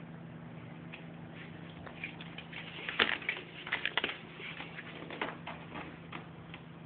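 Light taps and knocks of a small plastic chair as a toddler grips and climbs on it, bunched together in the middle, over a steady low hum.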